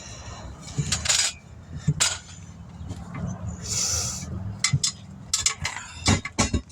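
Metal tools clinking and knocking while working on a tire and rim, with a short hiss about four seconds in and a cluster of knocks near the end.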